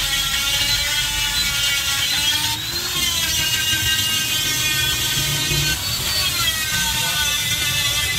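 Electric die grinder with a small bit grinding at the bolt holes of a tractor gearbox casing. Its whine climbs in pitch and sinks back twice, about three and six seconds in.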